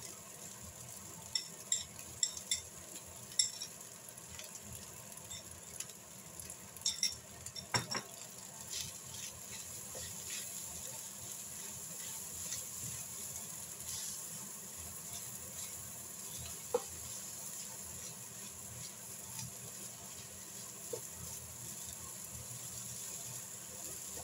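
Fried rice sizzling in a nonstick frying pan as it is stirred and tossed with a plastic spatula. A run of sharp clicks and taps of the spatula against the pan comes in the first several seconds, then the sizzling goes on more steadily with only an occasional tap.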